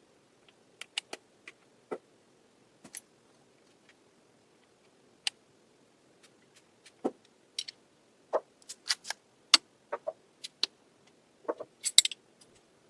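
Irregular sharp clicks and taps of small hard plastic objects being handled, as when lipstick tubes and caps are opened and set down. They come sparsely at first, then more often, with a quick cluster near the end.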